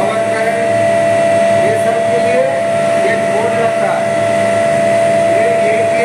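Steady high-pitched electrical whine over a lower hum from an Electrotherm (ET) induction furnace's control panel in operation.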